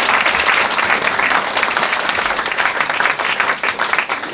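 Audience applauding: dense, steady clapping from a room full of people, thinning slightly near the end.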